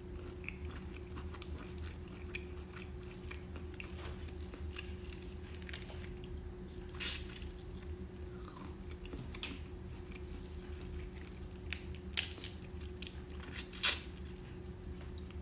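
Boiled crawfish being eaten up close: small crunches and cracks of shells pulled apart and chewing mouth sounds, with a few sharper cracks near the end. A steady low hum runs underneath.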